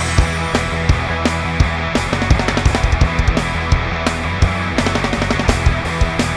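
Background rock music with distorted guitars and a driving drum beat.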